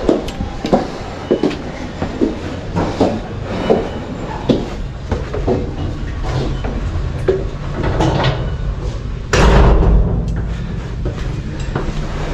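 Footsteps on a tiled floor, about one step every three-quarters of a second, over a low steady rumble, with a louder thud about nine seconds in.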